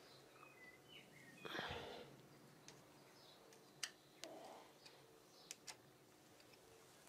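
Faint clicks and scrapes of a hand tool on metal while the cam chain tensioner of a TGB 50cc four-stroke scooter engine is unscrewed, with a brief scuffing noise about a second and a half in. Faint bird chirps early on.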